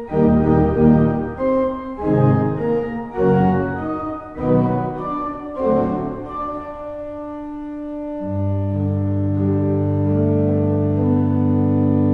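Pipe organ played on the pedals alone by two organists in a pedal duet: quick detached phrases of notes, then about eight seconds in a loud, low chord that is held.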